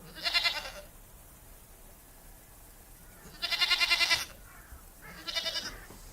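Goat bleating three times with a wavering tone: a short bleat at the start, a longer, louder one about three and a half seconds in, and a shorter one near the end.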